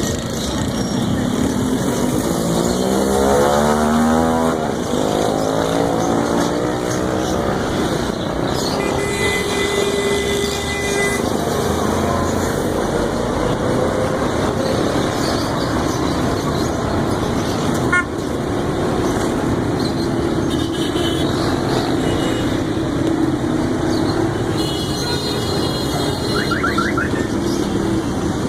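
Busy street traffic: cars and motorcycles running past, with an engine note rising and falling a few seconds in and a horn sounding for about two seconds near the middle.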